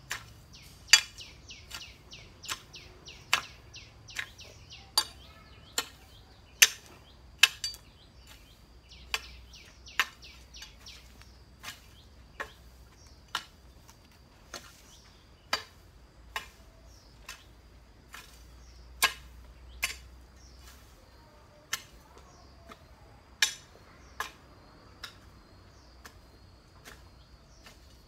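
A hoe chopping into grassy ground, a series of sharp strikes about once a second as weeds and turf are hacked up. Small birds chirp now and then behind it.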